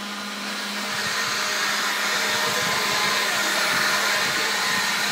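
Leaf blower running steadily with a continuous rush of air, getting a little louder about a second in and then holding.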